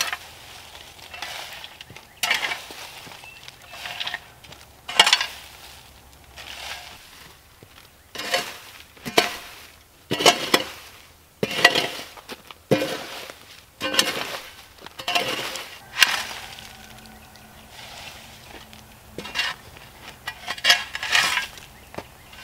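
A shovel scraping across hard dirt and scooping crunchy wood scraps and debris, tossed into a wheelbarrow, over and over in sharp strokes roughly a second or so apart.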